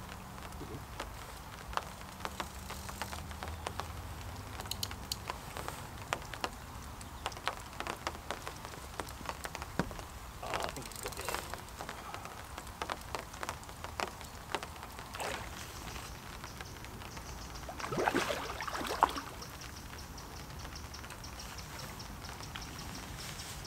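Raindrops ticking irregularly on a fishing umbrella canopy over a steady patter of rain, with a louder scuffling noise about eighteen seconds in.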